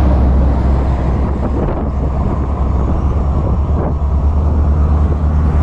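Steady low rumble of the RV's engine and running gear, with no break.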